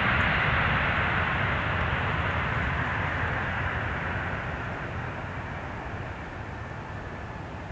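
Airbus A320 airliner's jet engines during the landing rollout, a steady rushing noise over a low rumble that fades gradually as the plane slows and moves away down the runway.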